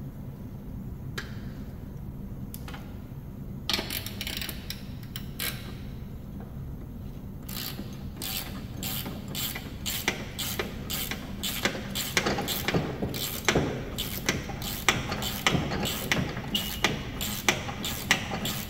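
Ratcheting wrench clicking on a mower deck spindle pulley nut: a few stray clicks at first, then from about halfway a steady run of sharp clicks, a few a second, getting louder as the wrench is swung back and forth.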